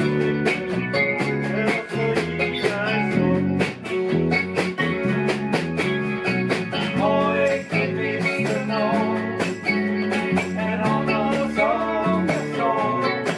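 Acoustic guitar strummed in a steady rhythm together with a digital piano playing chords, a live band performance of a song.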